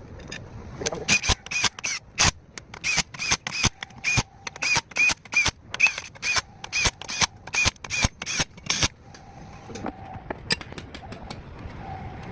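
A hammer striking steel repeatedly, about two to three blows a second, each blow ringing briefly, stopping about nine seconds in.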